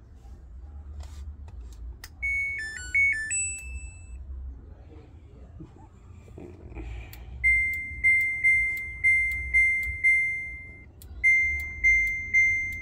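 Samsung Eco Bubble washing machine's control panel beeping: a short tune of electronic tones, then a run of single beeps about two a second that stops briefly and starts again.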